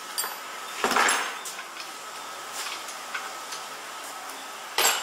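Steel parts of a single punch tablet press clanking as the machine is dismantled: a loud clatter about a second in, a sharp knock near the end, and lighter metal clicks between.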